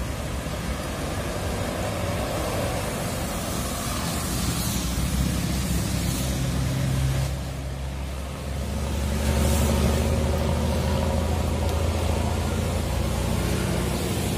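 Large intercity bus's diesel engine pulling away on a wet road, its pitch shifting as it accelerates, with tyre hiss swelling and fading as vehicles pass. About 8 s in the sound changes and a heavier, louder low engine rumble takes over.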